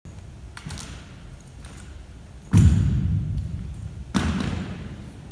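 A drill rifle dropped on a hardwood gym floor during exhibition rifle drill: a loud thud about two and a half seconds in and a second impact about a second and a half later, each ringing out in the big hall. A few light clicks come before.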